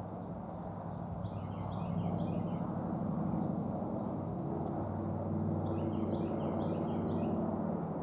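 A steady low engine hum, with a small bird chirping a quick run of short high notes twice, about a second in and again past the middle.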